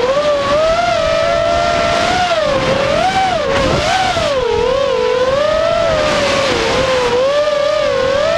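Racing quadcopter's four Cobra 2206 2100KV brushless motors and props whining in flight, heard from a camera on the quad. The pitch rises and falls constantly with the throttle.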